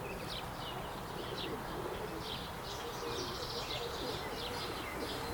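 Domestic pigeons cooing, a low rising-and-falling murmur that goes on throughout, with short high chirps of small birds repeating over it.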